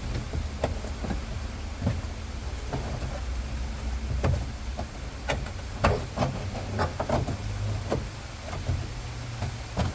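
Scattered knocks, taps and rustles of a carpeted trim panel being pushed and shifted into place in a car's boot. Steady rain runs underneath.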